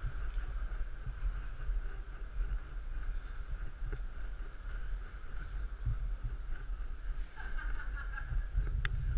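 Low, constantly wavering rumble of handling noise from a handheld camera carried at walking pace, over the steady hum and hiss of a large hall's ambience, with a few faint clicks near the end.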